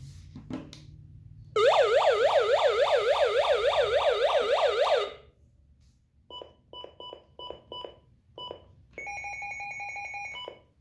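Electronic siren tone from a radio: a fast yelp that sweeps up and down about four times a second for three and a half seconds, starting and stopping abruptly. It is followed by a string of short electronic beeps, then a steady electronic tone for about a second and a half.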